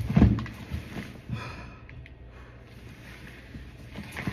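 Knocks and scuffing from a heavy cardboard package being handled, with a couple of low thumps at the start, a quieter stretch in the middle, and more knocks near the end.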